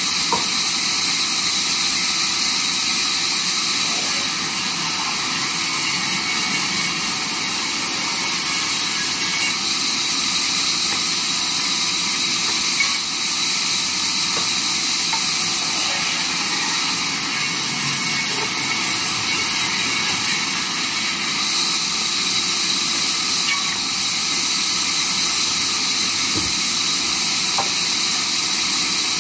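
Large vertical band saw running steadily, its blade cutting wooden boards as they are fed through, a continuous high-pitched machine noise. One brief knock about halfway through.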